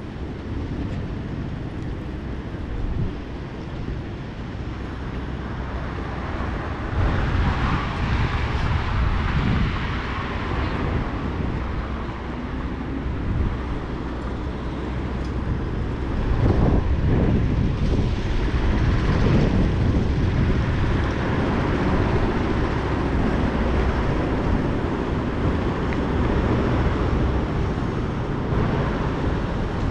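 City street ambience: vehicles passing on a wet road over a steady low rumble, swelling louder twice as traffic goes by.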